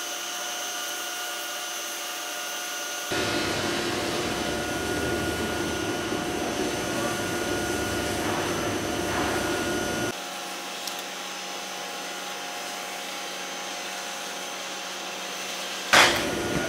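Foam sheet production line running: motors and steel rollers give a steady machine hum with a thin high whine. It is louder and rougher for several seconds in the middle, and a sudden loud clatter comes near the end.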